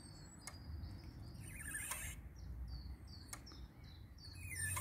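Small birds chirping outdoors, with a quick run of short repeated chirps, about four a second, in the second half, over a low outdoor rumble and a couple of faint clicks.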